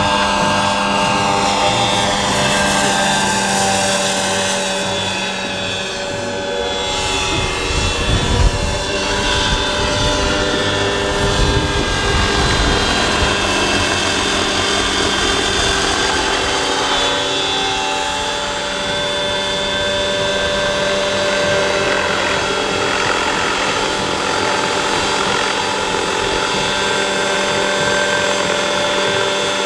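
Large electric-powered scale model Eurocopter EC 120 helicopter in flight: the steady whine of its electric drive with the rotor's whir, its pitch sliding up and down as it moves past. A stretch of low rumble comes about a quarter to a third of the way in.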